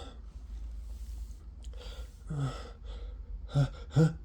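A man with the flu breathing softly, then catching his breath in short voiced gasps: one about two seconds in and two sharp ones near the end, the hitching breaths of a sneeze coming on.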